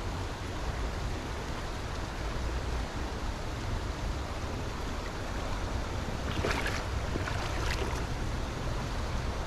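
Steady rushing of river water, with a few light knocks or rustles about two-thirds of the way through.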